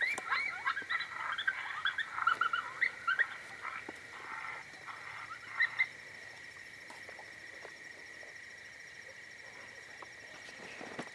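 Coyotes yipping: a quick run of short, high yips and yelps that dies away about six seconds in, over a faint steady high tone.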